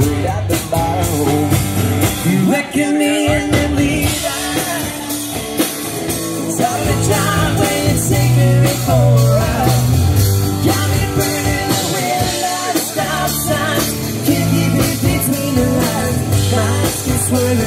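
Live country-rock band playing: electric and acoustic guitars, bass guitar and drum kit, with singing over the band.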